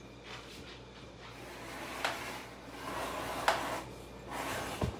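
Wet leather strap being pulled through an edge-rounding machine, its cutters shaving the edges round: a faint scraping that swells in the middle and near the end, with two sharp clicks about two and three and a half seconds in.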